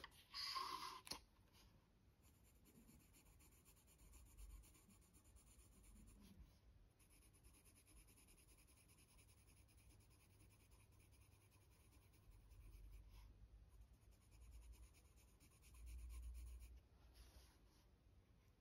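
Graphite pencil scratching faintly on notebook paper as the thick downstrokes of a faux-calligraphy capital S are drawn and filled in. A brief, louder handling rustle comes near the start.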